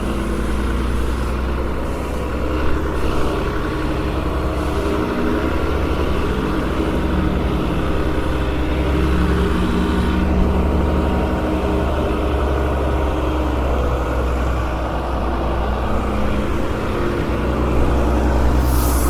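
Tow truck engine running steadily, its note shifting slightly up and down, with a brief hiss near the end.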